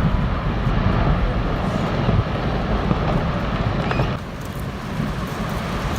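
Steady, loud low rumbling roar of glacier ice collapsing into the sea and the churning water it throws up, easing a little about four seconds in.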